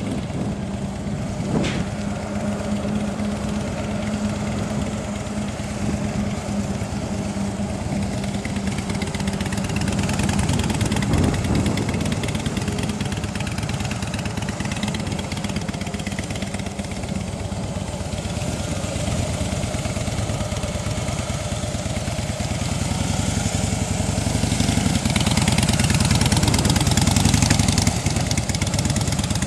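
2006 Harley-Davidson Softail Deuce's air-cooled V-twin running at low revs as the motorcycle is ridden slowly through tight cone weaves, swelling a little near the end. A single sharp click about two seconds in.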